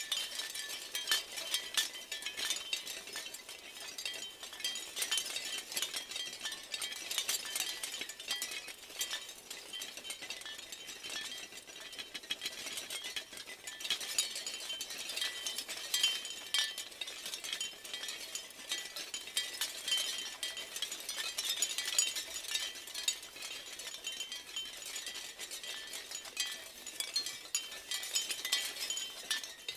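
Wind chimes clinking in a dense, continuous stream of overlapping strikes, with high ringing tones carrying between them.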